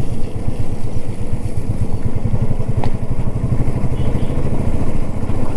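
Royal Enfield Classic 350's single-cylinder engine running under way, a steady, evenly pulsing exhaust thump.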